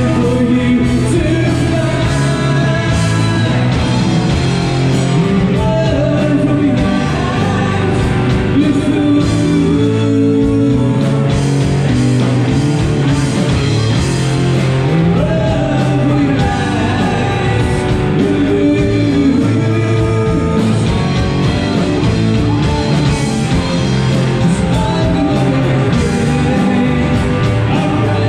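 Rock band playing live, heard through the room: a singer over electric guitars and a drum kit, at a steady, loud level.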